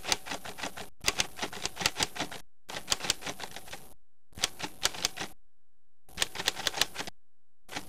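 Typewriter sound effect: quick key clacks in about five runs of one to one and a half seconds each, every run broken off by a short silence.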